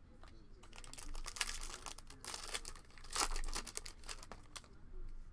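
Foil wrapper of a 2020 Topps Pro Debut baseball card pack being torn open by hand and crinkled: a run of crackling rips starting about a second in, loudest a little past the middle.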